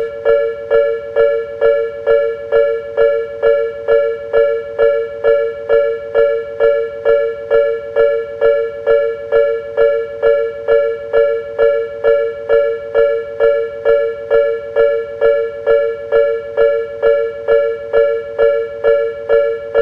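Japanese level-crossing warning bell ringing steadily, the same two-tone ding repeating about twice a second.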